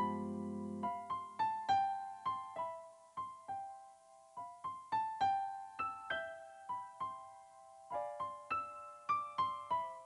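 Background music: a melody of single piano notes, after a low held chord that fades out about a second in.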